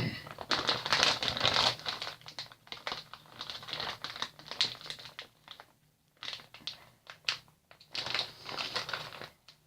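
Crinkly plastic packaging being handled and crumpled, a crackly rustle in irregular spells with a short lull about six seconds in.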